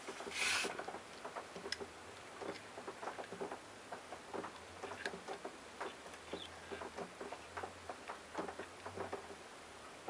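Irregular light clicks, taps and rustles of insulated hook-up wires and a small coil being handled on a wooden board, with a short louder scrape about half a second in.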